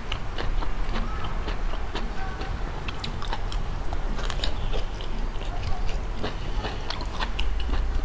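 A person chewing and biting seafood close to the microphone, in a dense, irregular run of sharp mouth clicks and crunches.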